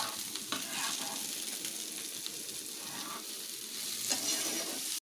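Beans, carrot and cauliflower sizzling steadily in hot oil in a pan, with a few short scrapes of stirring now and then.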